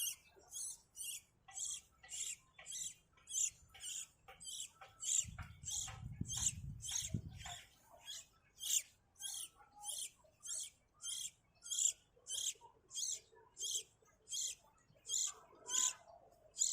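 Baby bird cheeping over and over, a short high begging call repeated about twice a second: the chick is hungry and begging for food. A low rumble runs underneath for a couple of seconds near the middle.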